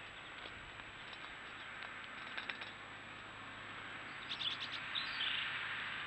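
Great spotted woodpecker pecking at a fat-ball feeder: a few faint taps, then a quick run of about six taps about four seconds in, followed at once by a short bird call, over a steady hiss.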